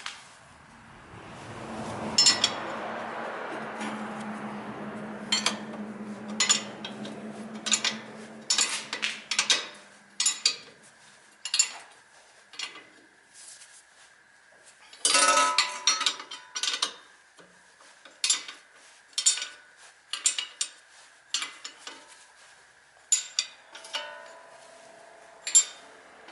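Metal hand tools clinking and knocking against metal parts, a long irregular series of sharp clinks, with a steady low hum through the first ten seconds or so.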